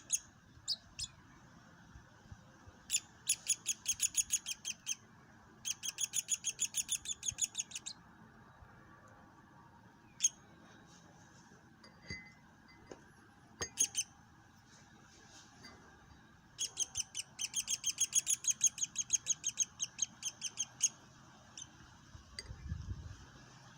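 Fledgling woodpecker begging for food: rapid trains of high, repeated calls, about six a second, in several bursts of two to four seconds, with single calls between them.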